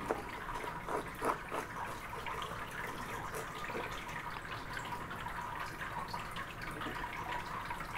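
Serrated knife slicing lengthwise through a 7 Pot Douglah chili pod on a plastic cutting board: faint, irregular wet crackles and small clicks, a few louder ones about a second in.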